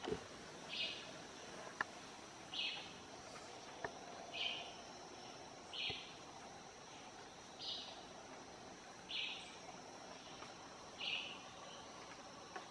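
Rainforest ambience: a steady high insect drone, with a short high-pitched call repeating about every two seconds, seven times, and a few faint clicks.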